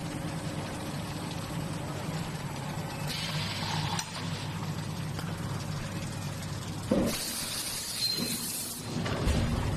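Hot-forging bolt production line running: a steady machine hum, broken by two hisses of air and a couple of metal clanks near the end.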